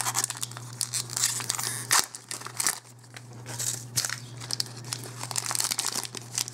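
Shiny foil wrapper of a Magic: The Gathering booster pack crinkling as it is handled, then torn open near the end, with a sharp crackle about two seconds in. A steady low hum runs underneath.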